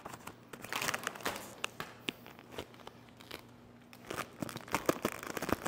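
A large sheet of vinyl car wrap crinkling and crackling as it is handled and draped over a pipe frame. The crackles come irregularly, thinning out in the middle and picking up again near the end.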